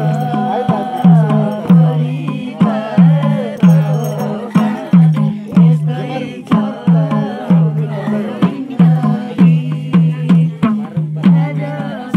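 Nepali dohori folk singing over a steady beat of low hand-drum strokes, a little under two a second, each stroke dipping slightly in pitch.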